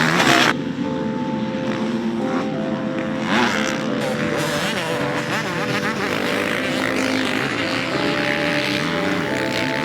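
Suzuki RM-Z450 motocross bike's four-stroke single-cylinder engine running on the track, its pitch stepping up and down as it is ridden, with a louder rush of noise in the first half second.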